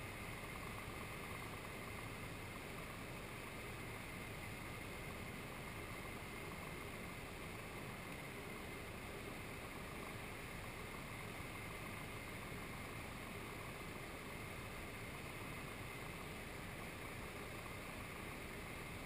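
SD1 Minisport ultralight aircraft's engine and airflow making a steady drone at constant power, with no change in pitch or loudness.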